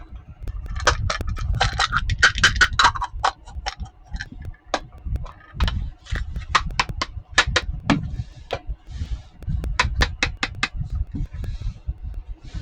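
Small plastic toy kitchen pieces being handled: irregular clusters of sharp clicks and taps as they knock together, with a little rustling of packaging in between.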